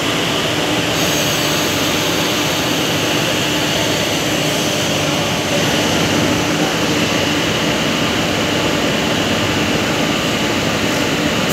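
Locomotive running steadily at close range: a loud, even mechanical roar with a steady hum under it.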